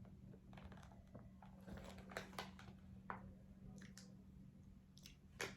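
Faint, scattered soft clicks and crunches of a person eating a birthday-cake-flavoured cream sandwich cookie, over a low steady hum.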